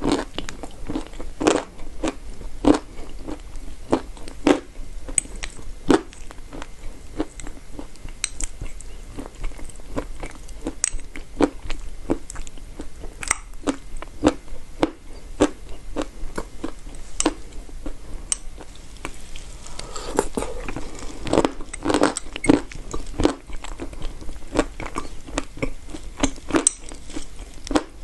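A person biting and chewing chalk: a steady run of sharp crunches, thickest about twenty seconds in.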